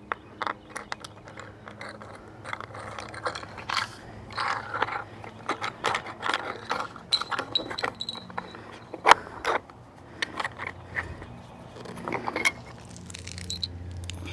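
Irregular small clicks and scrapes of hard plastic parts being handled and screwed together by hand, as the plastic mounting bracket is threaded onto the solar panel.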